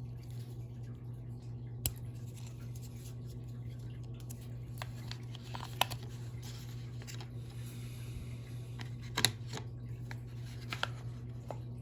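Hands handling the AirPods and their packaging: a few sharp clicks and light taps with faint rustling, over a steady low hum.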